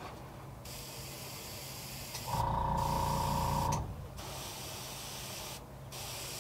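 Airbrush spraying paint through a stencil onto a lure, a thin hiss of air in stretches broken by short pauses. About two seconds in, a small motor hums steadily for about a second and a half.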